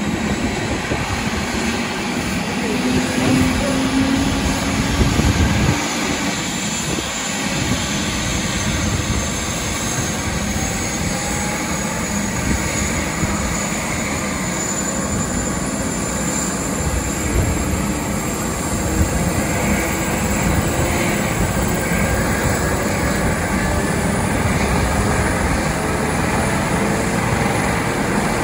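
Air ambulance helicopter running on the ground: a steady turbine-and-rotor noise with a high whine that slowly rises in pitch as the engines spool up before lift-off.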